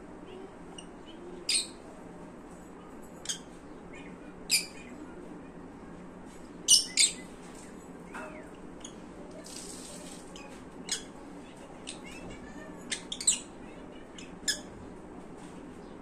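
Lutino peach-faced lovebirds giving short, sharp chirps, about ten scattered through, the loudest a quick pair about seven seconds in, over a steady low hum.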